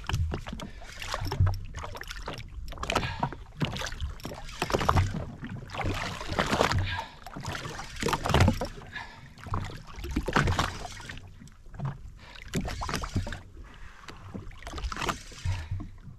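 Water slapping and sloshing in irregular surges against the hull of a drifting jet ski.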